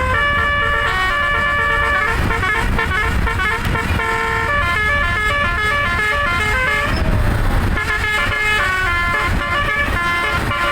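Bus telolet horn, an electronic horn module driving musical air horns, playing a quick melody note after note over a low engine rumble. A short hiss comes about seven seconds in.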